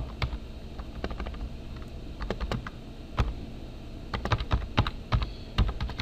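Typing on a computer keyboard: irregular key clicks, with a quicker run of keystrokes about four to five seconds in.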